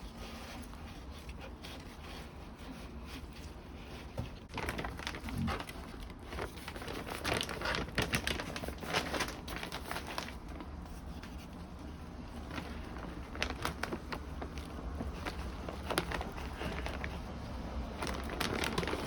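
Potting soil being handled: a plastic soil bag crinkling and soil rustling as it is poured and pushed around in a pot, in irregular crackles starting about four seconds in.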